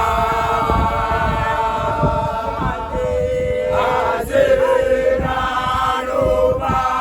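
A group of voices singing in chorus, holding long notes in harmony and gliding from one note to the next.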